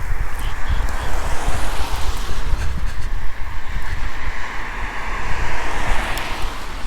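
Wind buffeting the microphone with a heavy, uneven rumble, under a broad rushing hiss that swells and then dies away about six and a half seconds in.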